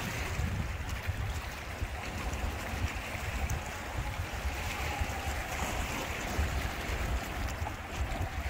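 Small waves washing and lapping against shoreline rocks, with wind rumbling on the microphone.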